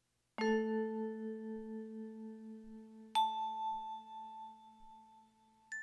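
Three struck bell-like chime notes, each higher than the last, each ringing on and slowly fading.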